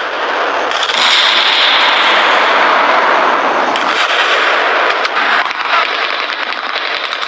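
War sound effect: a dense, continuous din of gunfire and explosions, with rapid shots crackling more thickly in the second half.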